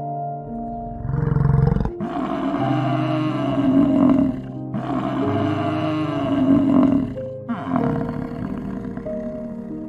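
A large animal's deep, rough roaring calls in long back-to-back stretches, starting about two seconds in and fading after about seven seconds, over soft background music of held notes.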